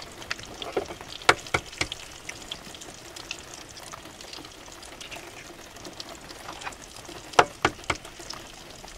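Thick-cut bacon sizzling steadily in a heavy pan, over rain pattering on a campervan roof. A few sharp clicks and taps cut through, a cluster in the first two seconds and another near the end.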